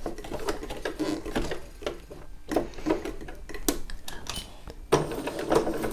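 Domestic electric sewing machine stitching a short, close zigzag, its needle going up and down in quick ticks that stop and start as the fabric is guided round a tight curve.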